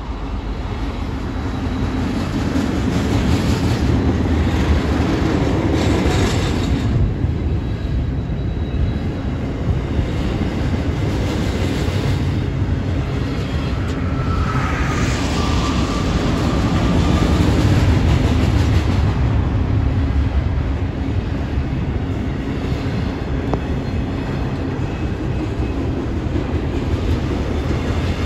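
Double-stack intermodal freight cars rolling past: a steady rumble with the rattle and clatter of wheels on rail, and one brief high squeal about halfway through.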